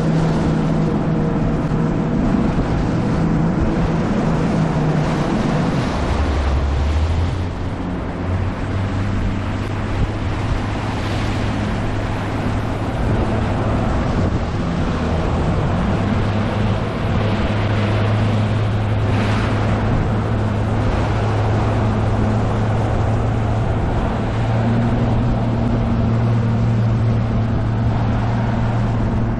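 Outboard motor of a Nitro Z20 bass boat running under way through choppy waves, with water splashing against the hull and wind on the microphone. The engine note drops about six seconds in and then holds steady at the lower pitch.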